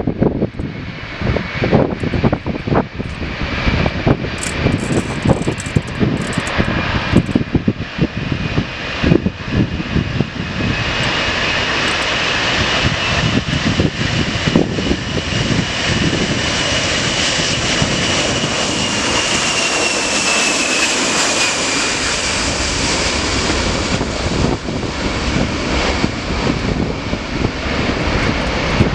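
Boeing 747 jet engines getting louder into a steady rush with a high whine that drops in pitch about twenty seconds in, as the jet goes past. Wind buffets the microphone, mostly in the first ten seconds.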